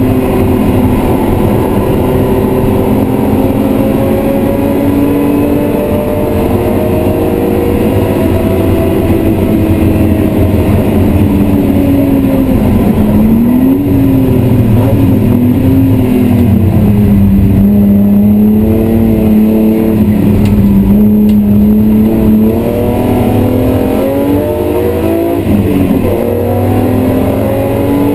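BMW E36 M3's 3.0-litre straight-six engine running hard, heard from inside the cabin. Its pitch climbs slowly, falls and jumps about with gear changes around halfway, holds steady for a while, then drops and climbs again near the end.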